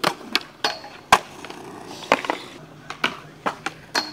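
Skateboard rolling on concrete, with a series of sharp clacks and cracks from the board's tail popping, the trucks and deck striking the metal handrail and the board slapping down; the loudest crack comes about a second in.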